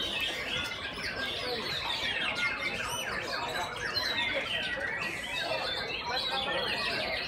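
Many caged white-rumped shamas (murai batu) singing at once in competition, a dense unbroken mix of overlapping whistles and chirps.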